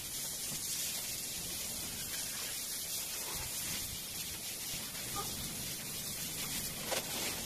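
Water from a garden hose spraying onto a wet tile floor: a steady hiss and splatter, with a brief knock near the end.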